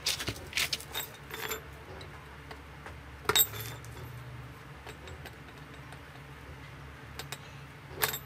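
Metal clinks and clicks of steel rods and a spring-loaded welding clamp being handled and clamped together: a quick cluster of clinks in the first second and a half, a louder clink about three seconds in and another near the end, over a low steady hum.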